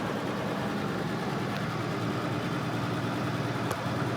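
Volvo 164's B30 straight-six engine idling steadily, with one faint tick near the end.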